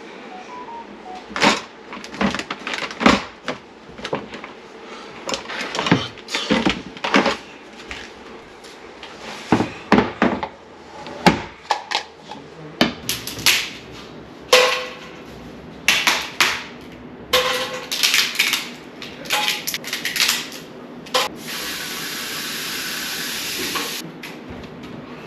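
Kitchen clatter: utensils, a bowl and a wooden cutting board knocked and set down on a stainless steel counter, a long run of sharp knocks. A steady hiss lasts about two seconds near the end.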